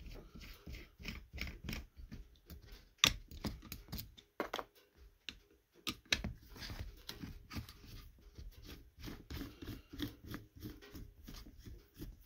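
A screwdriver backing the screws out of a Ski-Doo's vacuum-operated fuel pump: irregular small metal clicks and scrapes as the screws turn and the pump is handled. One sharp click about three seconds in is the loudest.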